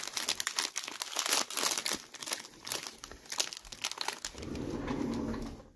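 Wrapper of a 1987 Topps jumbo baseball card pack crinkling and tearing as it is opened by hand, in quick crackles. For the last second and a half the crackles give way to a steadier, lower rustle.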